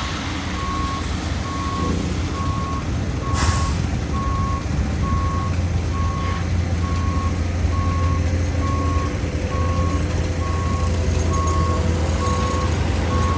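A heavy diesel truck's reversing alarm beeping about once a second over its running engine, with a short hiss about three seconds in.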